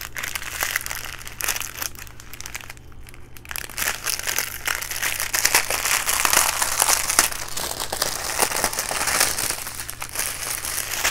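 Plastic bags of diamond-painting drills crinkling and rustling as they are handled, getting fuller and busier from about four seconds in.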